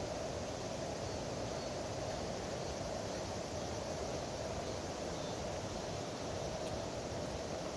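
Steady rushing of a mountain valley stream, an even, unbroken wash of water noise.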